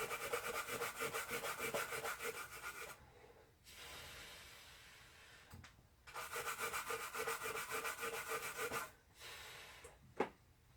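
Toothbrush scrubbing a circuit board wet with alcohol: quick, even back-and-forth bristle strokes in two bouts of about three seconds each, with a softer stretch between them, stopping near the end. The scrubbing cleans the board around the EEPROM chip so the programmer clip can make a good connection.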